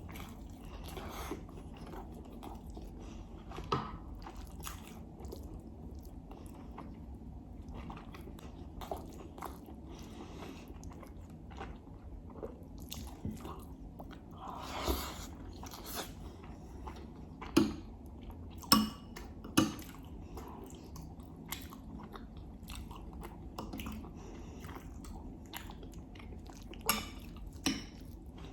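Close-miked chewing and biting of rice, herb stew and lamb, with wet mouth sounds throughout. A few sharp loud clicks stand out, three close together past the middle and two near the end. A steady low hum runs underneath.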